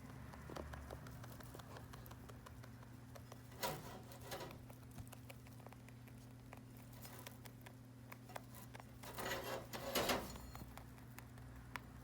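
Pet rabbit giving short threat grunts ('boo'), heard as a few brief noisy huffs about 4 seconds and 9 to 10 seconds in, over light rustling and clicking of hay being picked up from the floor.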